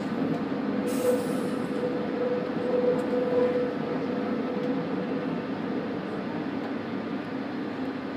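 Golden Pass Panoramic electric train on the metre-gauge MOB line running along curving track, heard from inside the lead car: a steady rumble of wheels on rail. A thin squeal starts about a second in and dies away about halfway through as the wheels take a curve, with a short hiss about a second in.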